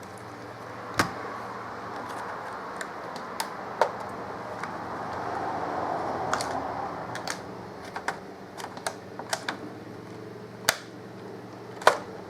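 Scattered sharp clicks and taps of a small screwdriver and plastic pick on a laptop's case as the bottom screws are worked out, with a stretch of scraping about halfway through.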